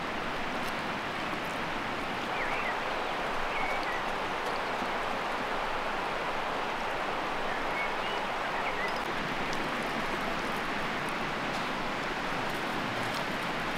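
Small creek flowing steadily, a continuous rushing of water, with a few faint short bird chirps over it.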